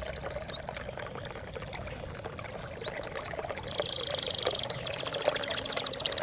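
Steady trickle of splashing water with a songbird singing over it: a few short rising whistles, then a fast trill about halfway through and a longer, rapid trill from about five seconds in.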